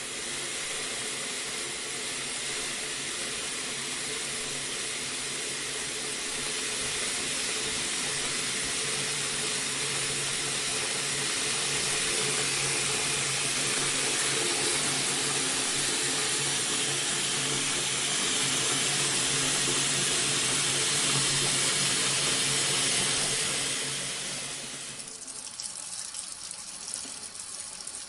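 Bathroom sink faucet running steadily into the basin, slightly louder as it goes. About 24 seconds in, the flow drops to a thinner, lighter splashing.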